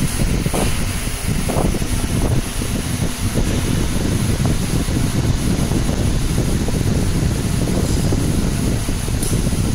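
Steady fan noise from a fiber laser marking machine running, with a faint, steady high-pitched whine over it.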